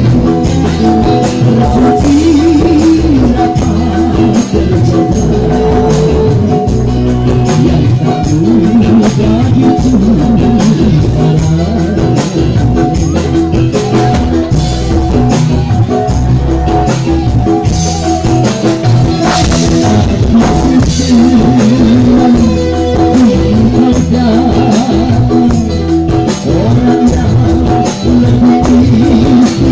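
A live dangdut band playing through a PA, with electric guitars, keyboard and drums, and amplified singing over it.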